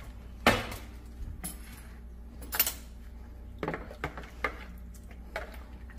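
A plastic bowl and a metal spoon being handled on a stone countertop: a few scattered knocks and clinks, the loudest about half a second in and another with a brief bright ring a little past halfway.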